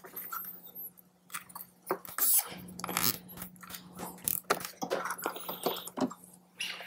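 Zip ties being fastened around a motorcycle wiring harness: irregular plastic clicks and rustling of wires, over a faint steady hum.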